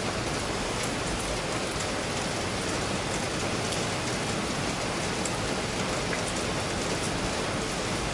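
Steady rain falling on wet stone paving, an even hiss with a few faint ticks of drops.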